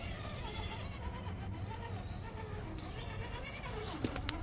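Electric drive motors and gearboxes of two Axial RC crawlers (an SCX10 III Base Camp and an SCX10 II) whining as they crawl over rock, the pitch rising and falling with the throttle. A sharp click comes near the end, typical of tyres or chassis knocking on the rock.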